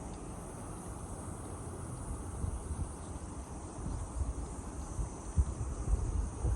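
Steady high-pitched chorus of insects, with a low wind rumble on the microphone that turns gustier in the second half.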